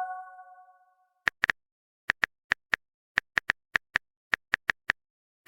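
A chime's tones ring out and fade in the first second. After a pause, a string of short, identical clicks follows at an uneven pace, about three a second, with dead silence between them like an edited-in sound effect.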